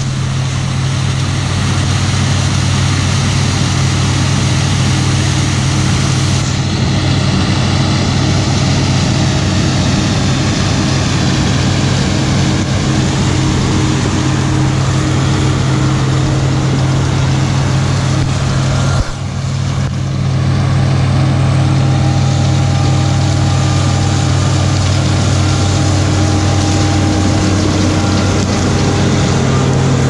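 Case International 1660 Axial-Flow combine running steadily while shelling corn: a constant low engine drone. The sound changes abruptly about two-thirds of the way through, then is slightly louder with a faint high whine added.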